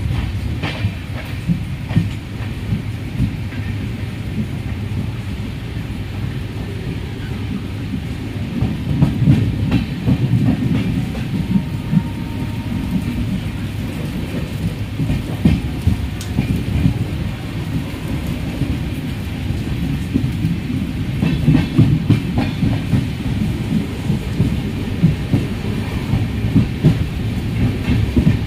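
Train carriage running along the track, heard from inside the coach at an open window: a steady low rumble of wheels on rail, with irregular clicks and knocks as the wheels pass over rail joints.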